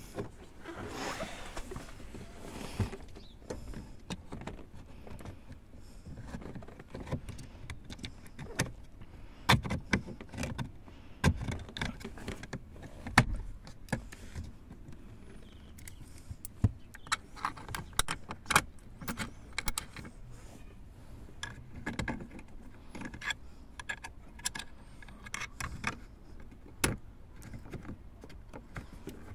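Irregular clicks, knocks and small rattles of hand work on car interior parts and tools, with a brief rushing noise about a second in.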